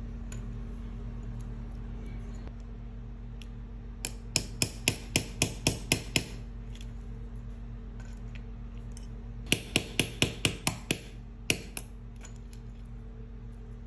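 Small watch-repair hammer tapping a pin in a metal watch bracelet link held in a link-holder block, to shorten the band: two quick runs of about eight light taps each, roughly four a second, over a steady low hum.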